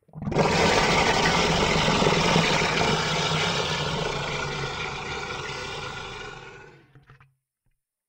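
Monster roar sound effect made from a processed human voice: one long, rough growling roar that starts abruptly and slowly fades out, ending about seven seconds in.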